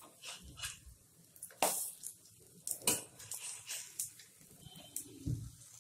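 Metal spatula scraping and tapping on an iron tawa as shallow-fried pakoras are turned one by one. It comes as a string of separate short scrapes and clicks, with a duller knock near the end.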